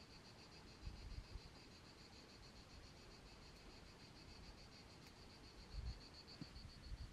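Faint insect song: a steady, high, pulsing chirr at about five pulses a second. A couple of soft low thumps come about a second in and again near the end.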